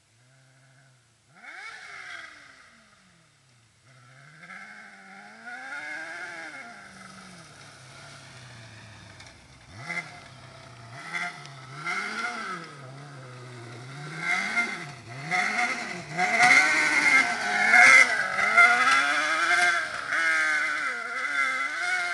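600cc kart cross engine being revved up and down as the kart is driven hard, its pitch rising and falling over and over with throttle and gear changes. It is loudest in the second half.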